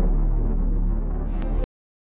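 Ambient synthesizer music with a deep, droning bass, playing under a logo animation. It cuts off abruptly about one and a half seconds in, just after a couple of faint clicks.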